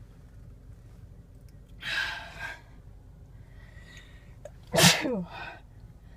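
A woman sneezing once. A breathy rush of air comes about two seconds in, then a loud sneeze about five seconds in whose voiced part falls in pitch, trailing off in a short second breath.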